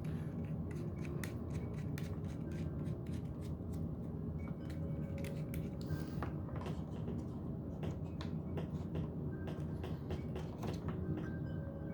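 Scattered small clicks and taps of rotary tool kit parts and accessories being handled and fitted by hand, over a steady low hum.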